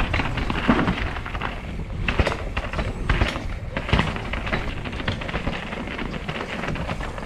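Mountain bike riding over a rocky trail: tyres rumbling and crunching over rock and grit, with frequent sharp knocks and clatters from the bike over a steady low rumble.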